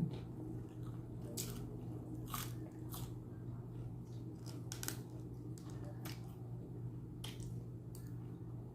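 Close-up mouth sounds of chewing a shawarma wrap with fresh vegetables: short crisp crunches and wet bites at irregular intervals, about once a second, over a steady low hum.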